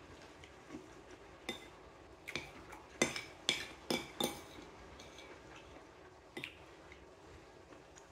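Metal spoon clinking and scraping against a ceramic plate while scooping up rice and stew: a quick run of clinks in the middle, and one more a couple of seconds later.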